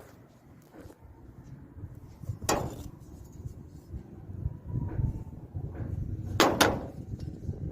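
Metal clanks: one sharp clank with a brief ring about two and a half seconds in, then two in quick succession near the end, over a low rumble.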